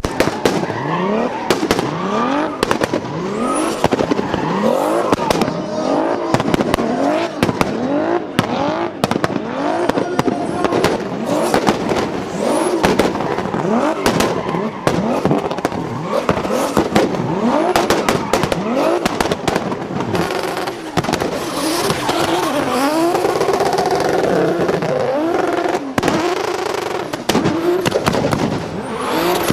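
Turbocharged drift cars revving hard, the engine note climbing over and over, with rapid sharp pops and bangs from the anti-lag system.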